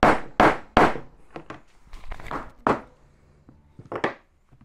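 A broom handle held against a ball bearing is struck to tap the bearing into the aluminium road-wheel hub of a 1/6 scale all-metal tank model: a quick run of sharp knocks in the first second, then lighter, sparser taps as the bearing seats.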